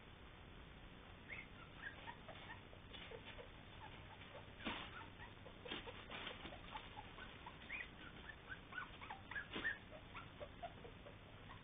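Three-week-old puppies giving many faint, short, high squeaks and whimpers, with a few soft knocks among them.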